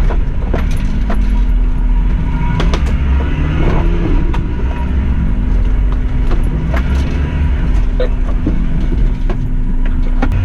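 Suzuki Jimny engine running steadily at low speed, with frequent sharp knocks and rattles from the body and suspension as it crawls over a rocky track.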